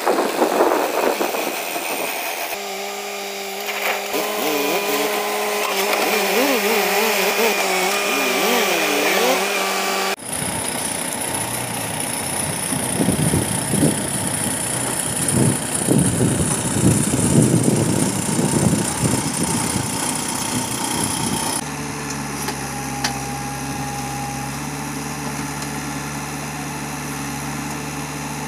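Diesel engines of a Mahindra tractor and a JCB 3DX backhoe loader running as the tractor hauls a loaded trolley and the backhoe digs and loads soil. The sound changes abruptly about ten seconds in and again about two-thirds through; in the last part a steady engine hum holds.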